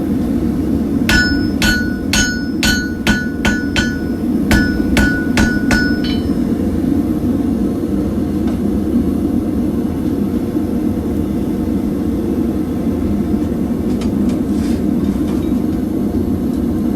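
A hammer strikes hot steel on a ringing anvil about a dozen times in two quick runs, drawing out a hook-tool blank, then stops. A propane gas forge's burner runs steadily underneath.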